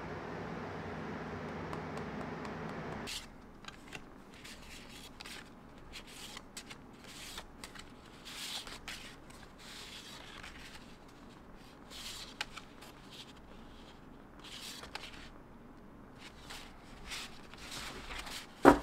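Stiff printed paper cards being handled and flipped through, making short papery rustles and light ticks. For the first three seconds a steady low hum is heard, then it cuts off. One sharp knock near the end is the loudest sound.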